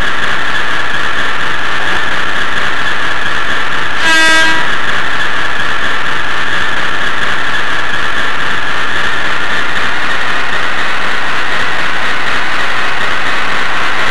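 Steady loud hiss with a whining band of noise, picked up by a tiny onboard camera on an N-scale model train. About four seconds in comes one short horn toot with a clear pitch, lasting under a second.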